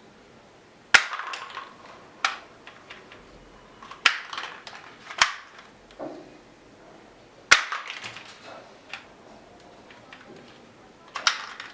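Plastic toy gun being handled: about six sharp plastic clacks at irregular intervals, some followed by a short rattle of smaller clicks.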